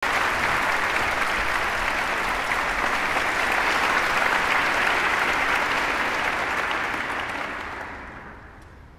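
Large concert-hall audience applauding, a dense steady clatter of clapping that dies away over the last two seconds.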